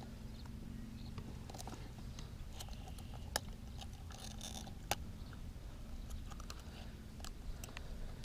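Faint clicks and scrapes of long-nosed pliers working a topwater frog's hooks out of a bowfin's bony mouth, with two sharper clicks about three and a half and five seconds in.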